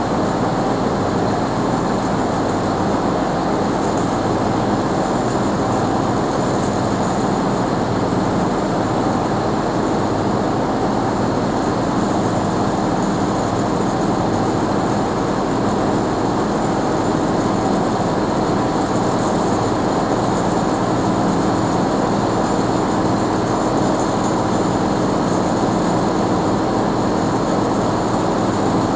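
Heavy diesel engines running steadily, a continuous deep drone that holds the same pitch throughout.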